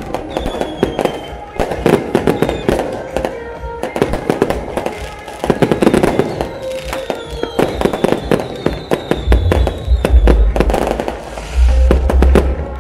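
Aerial fireworks display exploding in a dense, continuous barrage of sharp bangs and crackles, with thin falling whistles now and then.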